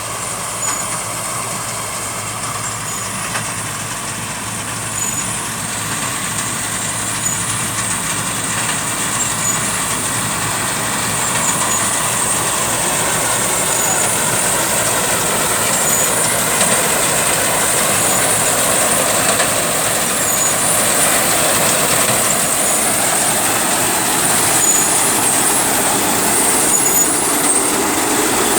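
KS tracked combine harvester's engine and machinery running steadily, growing gradually louder.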